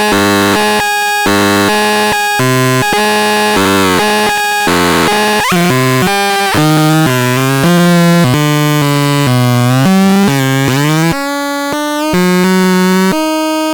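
Excrementon 320 electronic instrument playing a fast run of buzzy, overtone-rich held notes that step in pitch every fraction of a second, with a couple of sliding pitch sweeps partway through.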